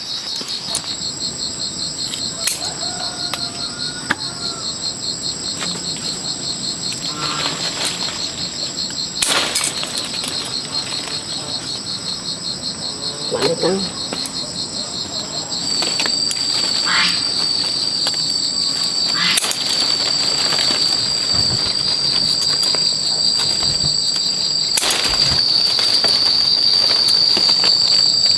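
Chorus of insects trilling steadily at a high pitch: a fast pulsing trill that about halfway through turns into a louder, unbroken whine. A few brief rustles or clicks come and go over it.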